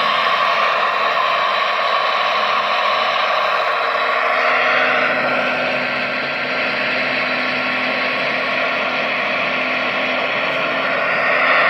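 RC model excavator running, its electric motors and gearing whirring steadily, easing slightly about halfway through.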